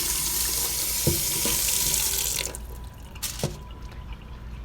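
Cold water running from a kitchen tap into a sink as potatoes are rinsed under it. The water stops about two and a half seconds in, followed by a couple of light knocks.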